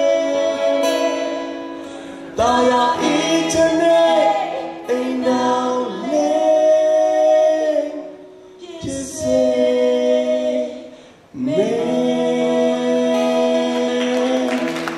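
A woman and a man singing a song together through microphones, in long held notes with short breaks between phrases.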